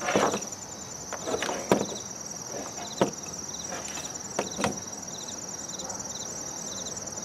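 A few sharp knocks and clatter as a metal tube-equipment chassis with wires is handled and turned over, the loudest two about a second and a half and three seconds in. Underneath, insects chirp steadily: a continuous high trill and short chirps repeating about twice a second.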